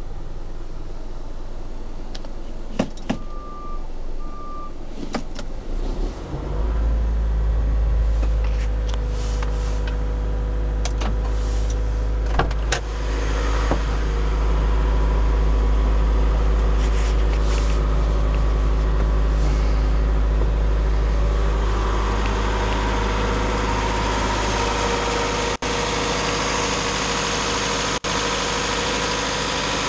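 Isuzu NPR box truck's 3.0-litre four-cylinder diesel idling, with a few sharp clicks and two short beeps about three seconds in. The deep low rumble of the idle grows much louder about six seconds in and holds steady.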